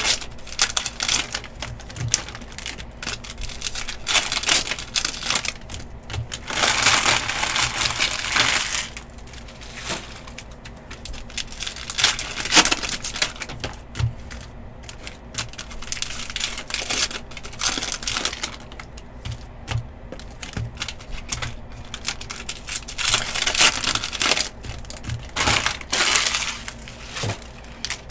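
Cellophane and plastic wrappers of trading card packs crinkling and tearing as the packs are opened by hand, in irregular bursts, the longest lasting a couple of seconds.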